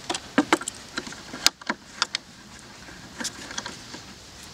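Scattered clicks and knocks of wood and metal as the chainsaw mill's wooden guide-rail bracket and its metal clamp are handled and adjusted, with the loudest knock about a second and a half in.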